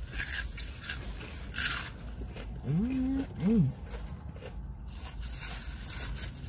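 Crunchy bites into crispy fried chicken, with sharp crackles in the first two seconds. About halfway through comes a short hummed 'mm-hmm' with the mouth closed, in two parts.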